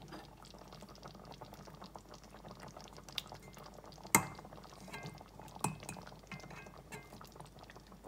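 A pot of soup simmering with a faint bubbling, while cooked macaroni is scraped out of a metal mesh strainer into it. There are a few sharp metal taps against the pot and strainer, the loudest about four seconds in.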